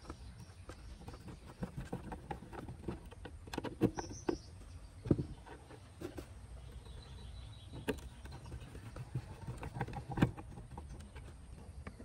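Screwdriver working the screw terminals of a car amplifier while a wire is fed into the terminal block: scattered small metallic clicks, taps and scrapes, a few sharper ones about 4, 5 and 10 seconds in.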